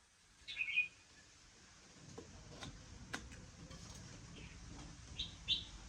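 Chickens giving short, high calls: one about half a second in and two close together near the end, with a few sharp clicks in between.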